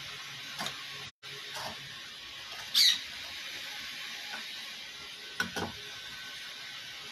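Carving knife cutting into a green-wood kuksa blank: a handful of short slicing scrapes, the loudest about three seconds in, over a steady hiss.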